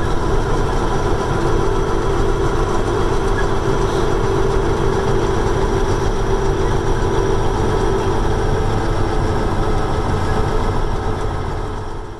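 Mack E9 V8 diesel in a 1989 Mack Superliner running steadily at road speed, heard from inside the cab with road noise. The sound fades out near the end.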